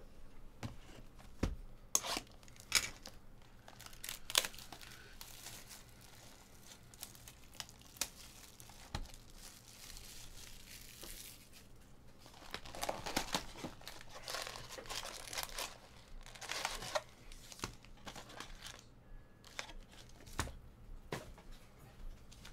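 Trading card pack wrappers being torn open and crinkled, with scattered sharp snaps and clicks from handling the packs and cards. The crinkling is thickest a little past the middle.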